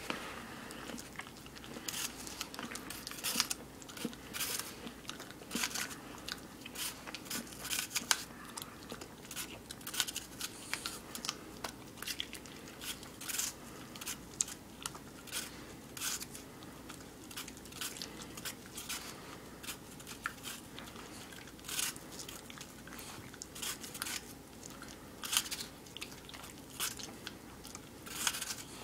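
A dog biting into a hand-held raw apple and chewing the pieces: irregular crisp crunches, about one or two a second.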